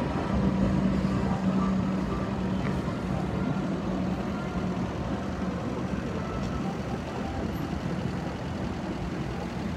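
Heavy vehicle engine running with a steady hum over a rumble. The hum fades over the first half as the vehicle moves away, and the overall sound slowly grows quieter.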